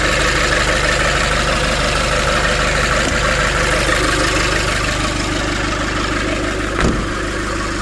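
Nissan Urvan diesel engine idling steadily after its diesel pump fault was fixed by replacing a bolt, with no leak. A single brief knock sounds near the end.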